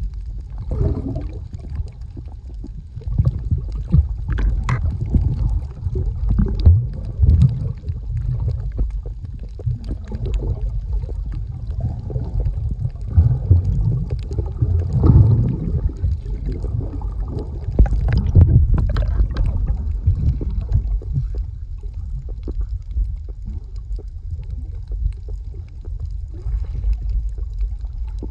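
Muffled underwater rumble and gurgling of water moving around a camera held below the surface, rising and falling in irregular swells.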